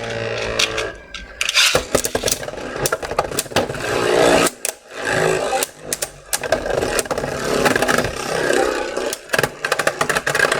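Beyblade Burst spinning tops whirring and clashing in a plastic stadium: rapid, irregular clattering clicks as they strike each other and the stadium walls.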